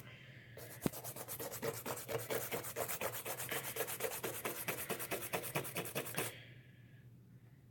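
Scrub brush scrubbing a soapy leather Nike Air Force 1 sneaker in quick back-and-forth strokes, several a second, lifting dirt from the leather; the scrubbing stops about six seconds in.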